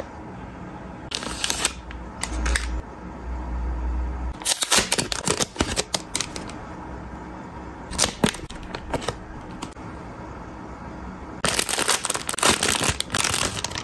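Hands handling small packaged hair accessories: plastic packaging rustling and crinkling in short bursts, with light clicks. The longest burst comes near the end, as a clear plastic bag holding a crocheted scrunchie is handled.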